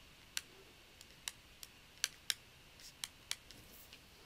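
About ten faint, sharp clicks at irregular spacing from a stylus tapping on a pen tablet as a word is handwritten.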